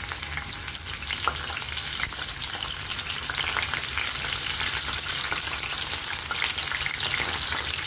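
Whole kembung mackerel frying in hot oil in a nonstick pan: a steady sizzle with dense crackling as more fish are laid in.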